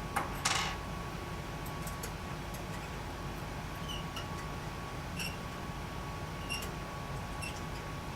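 Small metal handling sounds: a click and a short scrape near the start, then faint short squeaks about a second apart, as the screws holding the laser light arm are worked loose, over a steady electrical hum.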